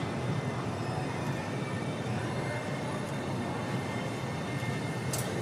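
Articulated tram rolling slowly through a curve on street track, its running gear giving a steady low rumble with a faint high squeal of wheels on the curved rail. A single sharp click about five seconds in.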